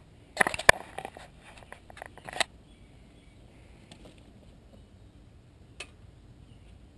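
Handling noises: about two seconds of rustling and clattering with several sharp clicks, then a single sharp click near the end as hands work the log splitter's small gas engine controls. The engine is not running.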